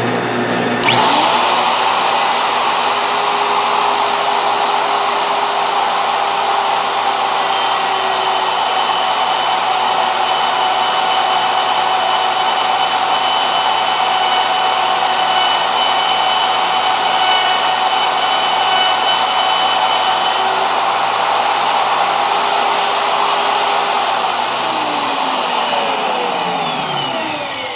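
Electric router switched on and running at a steady high whine while its bit cuts a radius profile into a sanding drum. It is switched off near the end and its pitch falls as it spins down.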